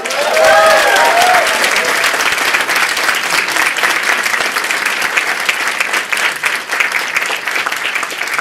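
A large audience applauding steadily after a speech, with a few voices whooping and cheering in the first second or so.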